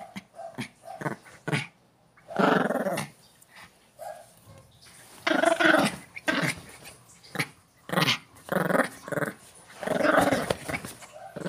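Miniature pinscher growling in a series of short bursts, about six of them, with brief pauses between.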